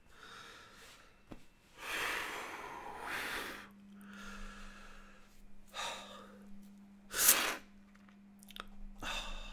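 A man breathing heavily in distress: a few long, noisy breaths and sighs, with a sharp, loud intake of breath about seven seconds in.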